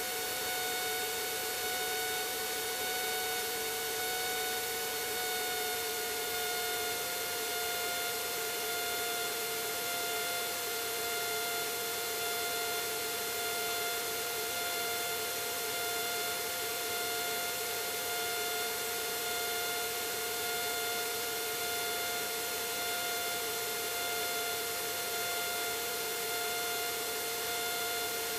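Steady cabin drone of a single-engine light airplane in flight: a high whine with overtones over an even hiss, the whine dipping slightly in pitch a few seconds in.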